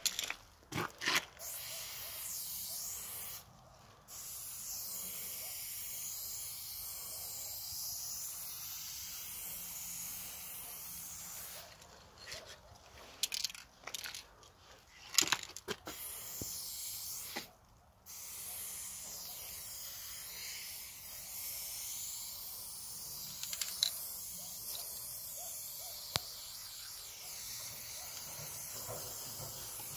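Aerosol spray paint can hissing in long, steady bursts of several seconds with brief pauses between them. Sharp clicks and knocks come near the start and again around the middle.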